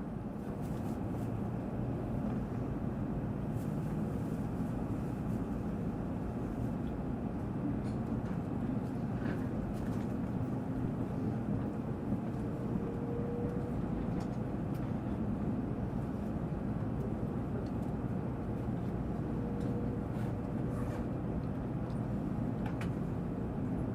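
Tokaido Shinkansen Nozomi car's cabin noise while the train runs: a steady low rumble of wheels and running gear, with a faint thin whine coming and going in the middle and later on.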